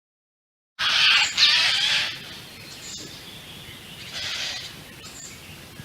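Eurasian jay screeching: after a brief silence, a loud harsh screech about a second in, then a fainter one about four seconds in.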